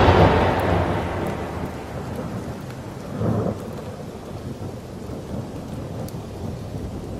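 A thunderclap rumbling and dying away over steady rain, with a second, smaller roll of thunder about three seconds in.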